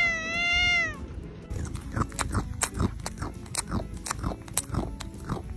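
A cat's meow: one drawn-out call that ends about a second in. It is followed by a run of irregular sharp clicks and crackles.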